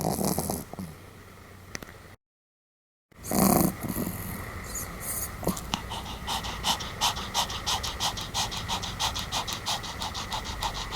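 Pomeranian breathing: a loud snore at the start and another just after a brief gap of silence about three seconds in, then fast, even panting at several breaths a second.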